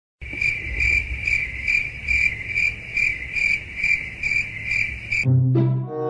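Cricket chirping in an even rhythm, a little over two chirps a second, starting suddenly and cutting off abruptly about five seconds in.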